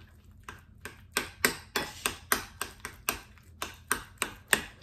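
A metal utensil clinking against a glass mixing bowl in quick, regular strokes, about three or four clicks a second, as hard-boiled egg yolks are mashed into mayonnaise.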